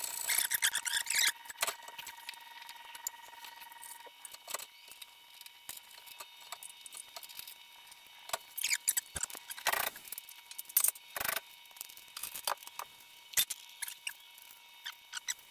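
Light metal clinks, rattles and short scrapes of the stainless exhaust and the CSP Hideaway muffler being handled and fitted, with hand tools touching the metal. There is a scratchy, busy rattle in the first second or so and a cluster of sharp clicks in the second half.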